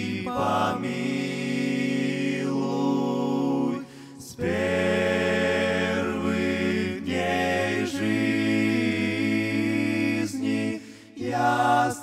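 Men's vocal group singing a cappella in close harmony, holding long sustained chords. The singing pauses briefly about four seconds in and again near the end.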